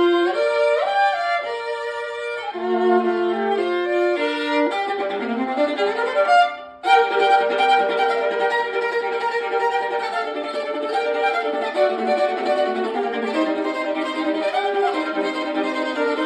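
Violin playing a melody, often with two notes at once, with a quick upward run about five seconds in, a brief break, then rapid notes.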